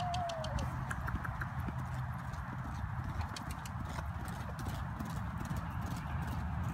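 Hoofbeats of a miniature Shetland pony cantering on a sand arena, a run of short thuds and clicks.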